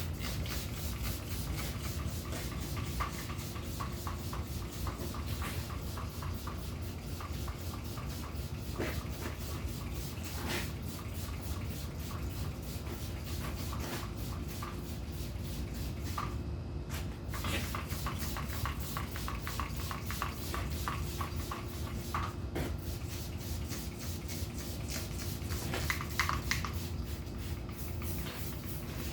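Degreaser being sprayed onto a dirty truck frame: a steady spray hiss that breaks off briefly a few times, over a low steady hum, with occasional small clicks.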